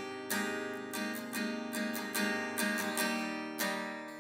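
Background music of strummed acoustic guitar with a steady rhythm, fading down near the end.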